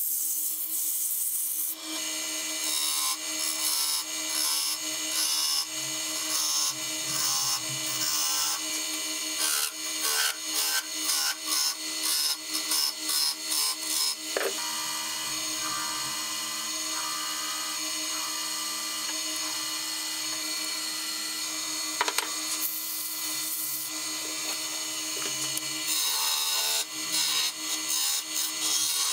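A small wood lathe runs steadily while a hand-held tool rubs against the spinning wooden handle in quick repeated strokes. Partway through, a wire is pressed to the turning wood to burn lines into it.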